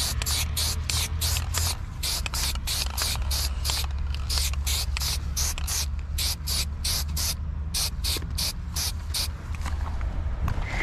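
Trigger spray bottle of water-thinned paint being pumped in quick repeated squirts, about three to four hissing strokes a second with a couple of short pauses, stopping shortly before the end. A steady low rumble runs underneath.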